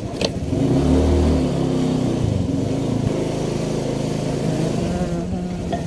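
Small motorcycle engine being ridden: it picks up revs about half a second in, then runs steadily. A short click just after the start.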